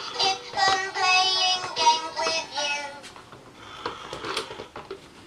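An electronic musical toy ball playing a children's song in a synthetic child's singing voice. The song stops about three seconds in, leaving a few faint knocks as the ball rolls on the floor.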